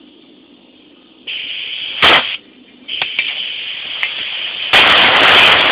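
Compressed-air blow gun hissing in three blasts, blowing sanding dust off metal clamps. The first starts about a second in, and the last and loudest near the end.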